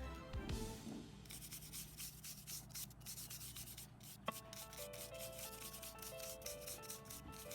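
Irregular scratchy crackling noise from workshop work, under soft background music with a simple melody of stepped notes that grows clearer about four seconds in.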